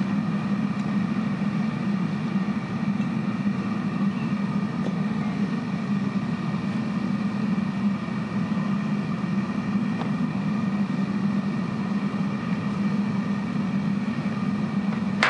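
Propane burner firing a metal-melting furnace, a steady roar. A single sharp knock comes right at the end.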